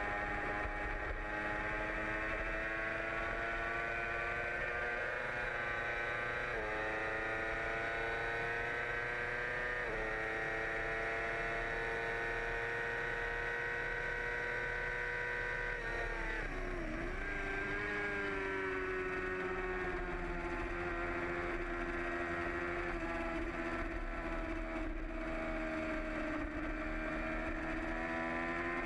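A 2008 Yamaha R6's inline-four engine at racing speed, heard from an onboard camera over steady wind rush. Its pitch climbs with two sudden upshifts in the first ten seconds and holds high down the straight. Near the middle the revs fall sharply through downshifts, then build slowly again through the corner.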